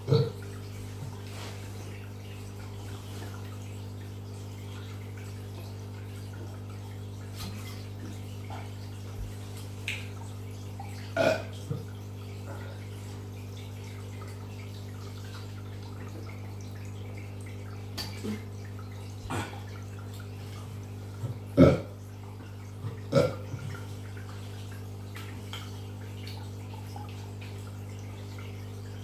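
A string of short burps at uneven intervals, the loudest about 11 and 22 seconds in, over a steady low hum.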